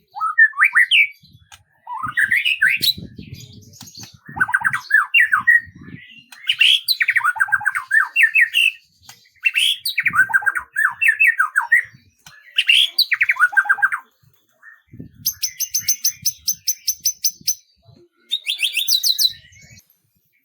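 A songbird singing a varied song of short phrases, each a quick run of repeated rising and falling notes. About fifteen seconds in it switches to a very fast, high-pitched trill, then a rapid run of rising notes.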